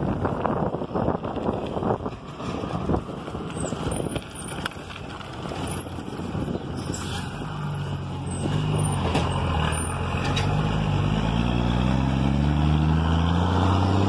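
Gusty wind and road noise on the microphone at first. From about halfway, the six-cylinder diesel engine of an old Mercedes-Benz 1113 truck is heard up close, its pitch climbing steadily as it revs up.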